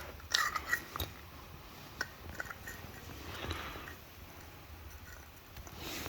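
Faint, scattered small clicks and taps of light handling, with a short cluster of clicks about half a second in.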